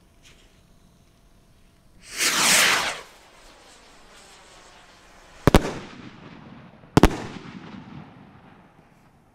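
Zeus Fireworks double break rocket launching with a loud whoosh about two seconds in, then its two breaks going off as two sharp bangs about a second and a half apart, each trailing off in an echo.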